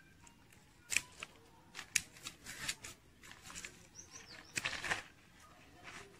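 Scissors snipping grapevine stems, with two sharp clicks about one and two seconds in, among rustling of the vine's leaves as it is handled.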